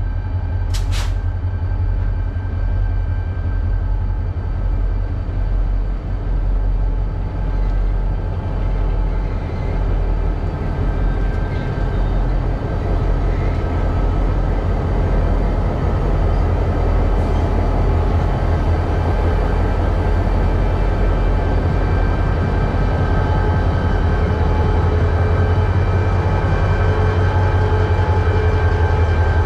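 Norfolk Southern diesel locomotives rolling slowly past at close range. The engines' steady drone grows louder as they draw near. There is a brief sharp click about a second in.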